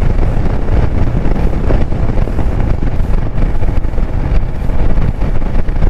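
Steady, loud wind blast on the microphone of a rider's camera while a Royal Enfield Himalayan motorcycle is ridden along the highway.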